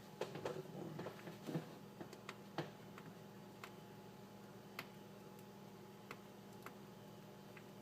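Faint scattered clicks and taps from hands handling a thin wire and a roll of electrical tape, several close together in the first few seconds, then only now and then, over a steady low hum.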